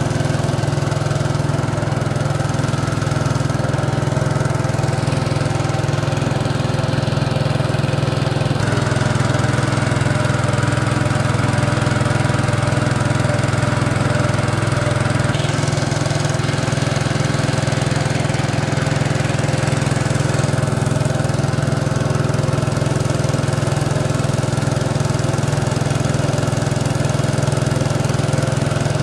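The small engine of a wooden river boat running steadily as the boat travels under way. It gives a constant low hum with a buzzing, mower-like tone, its pitch shifting slightly a few times.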